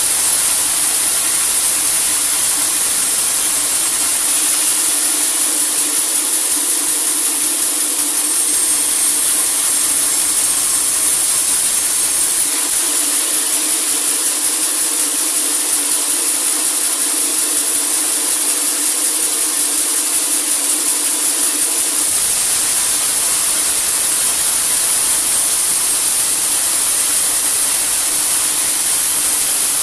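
Sawmill saw cutting a large teak log: a steady, loud high-pitched hiss over a low machine hum. The sound shifts abruptly about 4, 12 and 22 seconds in.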